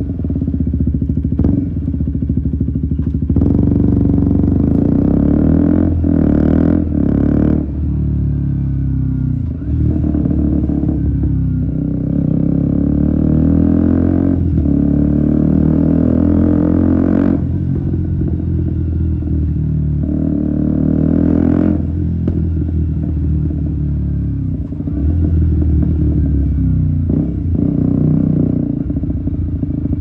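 2017 KTM Duke 125's single-cylinder four-stroke engine, fitted with an Akrapovic exhaust and a GPR decat link pipe, riding hard. The revs rise and fall over and over, with short breaks between pulls every few seconds, heard close to the silencer.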